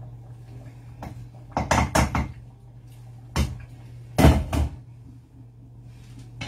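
Sharp clanks and knocks of a cooking utensil against a stainless steel pot on the stove: a quick run of three about a second and a half in, a single knock a little later, and another cluster just after four seconds, over a steady low hum.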